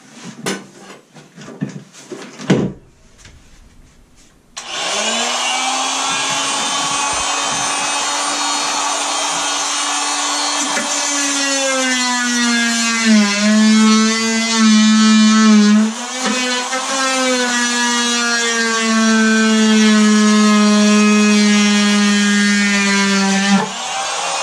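A high-speed oscillating multi-tool cutting fiberglass. After a few light knocks it starts about five seconds in and runs with a loud, steady buzz. Its pitch drops twice as the blade bogs into the cut and recovers in between, then it cuts off shortly before the end and restarts briefly. The cutting is slow.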